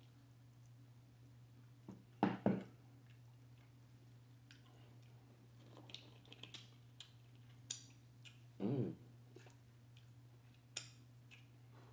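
A person eating chicken wings and fries: chewing, lip smacks and finger-licking clicks, with two louder brief mouth sounds about two seconds in and near nine seconds, over a steady low hum.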